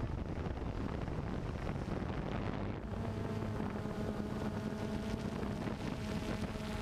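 Camera drone's rotors humming, with wind rumbling on the microphone; about three seconds in, a steady pitched hum of the motors comes through clearly.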